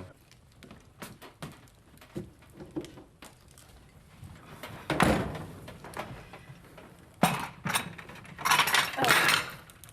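Household clatter: scattered clicks and knocks of dishes and cutlery being handled, with louder clattering about five seconds in and again near the end.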